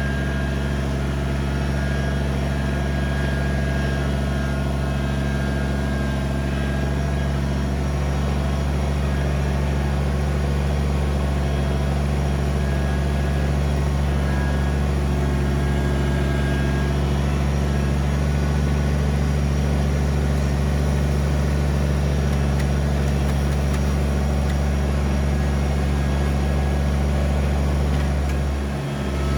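Kubota BX23S compact tractor's three-cylinder diesel engine running steadily, its revs briefly dipping near the end.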